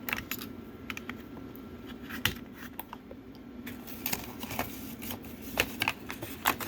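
Scattered small clicks, taps and rattles of AAA batteries and a plastic remote control being handled as the batteries are loaded, over a low steady hum.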